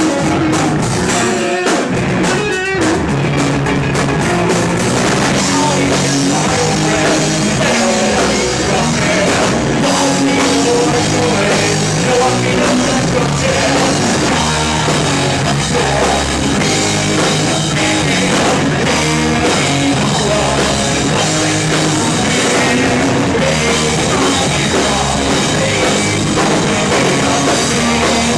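Live rock band playing a song loudly and steadily, with drum kit and electric guitar, and a couple of brief stop-start breaks in the first few seconds.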